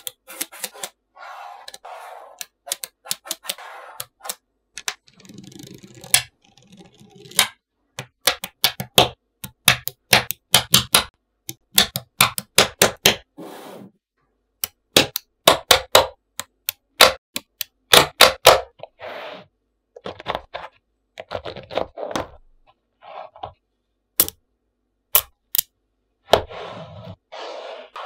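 Small neodymium magnetic balls clicking sharply as they snap together, in quick irregular runs of clicks, with a few short stretches of softer grainy rattle between them.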